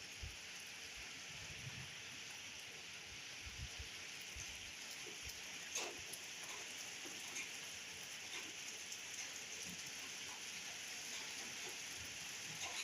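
Steady rain falling, an even hiss with scattered drops tapping, and one sharper tap about six seconds in.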